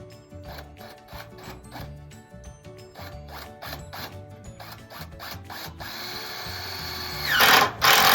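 Background music with a steady beat. Near the end a power drill runs, then drives a screw into the roofing: a loud, rough burst falling in pitch.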